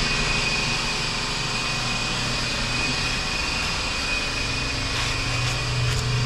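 A machine running steadily, with a constant high-pitched whine over a low hum.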